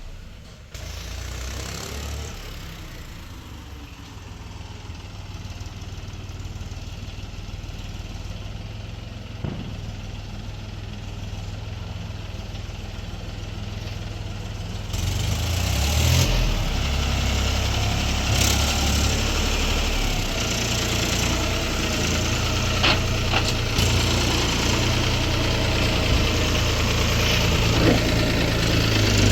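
Electric arc welding: a steady low hum from the welding machine with a crackling hiss of the arc, which gets louder about halfway through.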